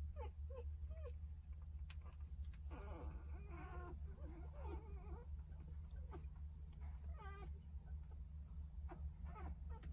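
Newborn Jindo puppies, three days old, squeaking and whimpering in short high cries. A longer wavering cry comes about three to five seconds in, and another a little past seven seconds. A steady low hum runs underneath.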